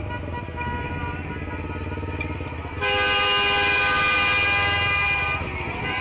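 Car horns honking in street traffic over a low running engine, the honking of a celebrating crowd. A louder, long horn blast starts about three seconds in and holds for about two and a half seconds before stopping.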